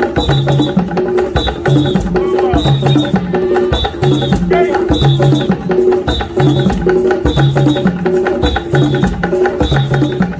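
Rhythmic music with percussion and a repeating pattern of pitched notes.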